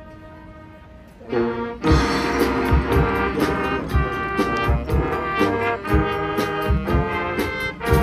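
High school marching band: a soft held note, then about a second in the brass section comes in loud and swells into full sustained chords over repeated low drum hits.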